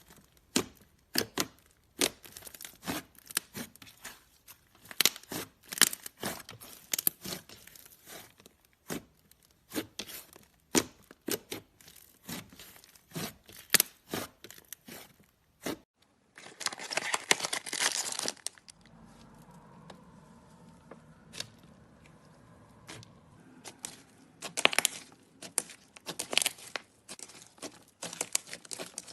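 Slime being squished and stretched by hand, giving sharp crackling pops and snaps in quick, irregular succession. About halfway through the sound cuts off, then comes a dense crackling rush of about two seconds, a quieter stretch, and more pops near the end.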